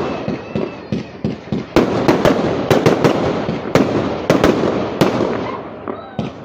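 Fireworks going off: an irregular barrage of sharp bangs, several a second, with crackling between them.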